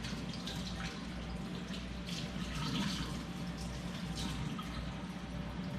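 Water running steadily from a tap as a soldered metal post, just out of the acid pickle, is rinsed off under it.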